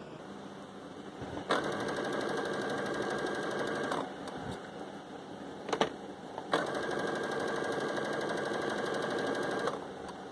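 Electric sewing machine stitching a hem in two steady runs of about three seconds each, stopping in between while the fabric is turned; a couple of light knocks in the pause.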